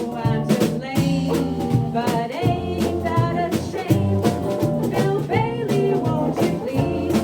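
Small acoustic swing band playing an up-tempo dance tune: a stepping bass line and steady drum beat under strummed guitar and banjoleles, with a wavering melody line on top.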